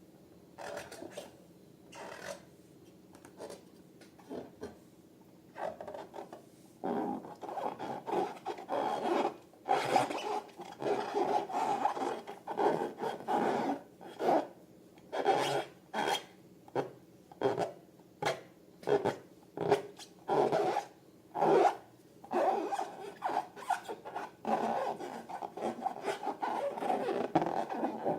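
Hands rubbing and squeezing latex balloons and slime in a run of short rasping strokes, about one a second. The strokes are faint and sparse at first and grow louder and closer together about a quarter of the way in.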